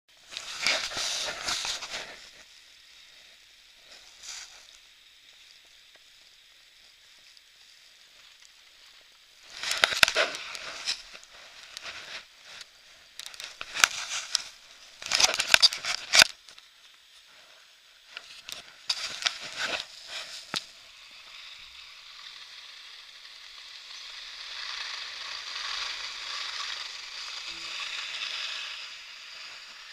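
Skis scraping and hissing over packed snow: scratchy bursts of a second or two, then a longer, steadier hiss near the end.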